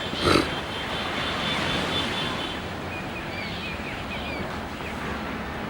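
Steady rushing outdoor noise, with one brief loud knock just after the start and a few short, high bird chirps in the middle.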